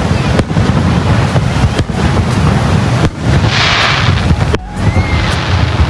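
Aerial fireworks display: shells bursting with repeated sharp bangs over a steady low rumble, with a hissing burst about three and a half seconds in.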